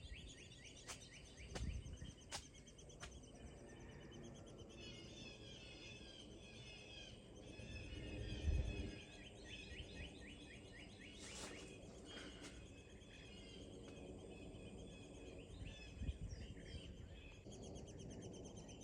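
Woodpecker nestlings begging in the nest: a faint, continuous chitter of rapid high chirps. A few sharp clicks in the first three seconds and a short hiss about eleven seconds in.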